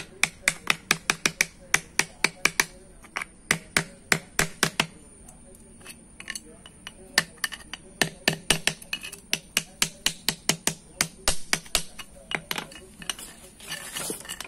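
Hammer tapping a punch to drive the old lining rivets out of a drum brake shoe: quick, sharp metal-on-metal taps, about four a second in runs, with a lull in the middle. A short scraping rustle comes near the end.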